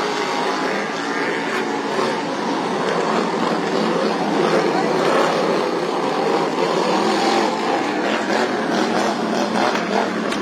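Engines of modified racing lawn mowers running at speed, a steady loud engine noise.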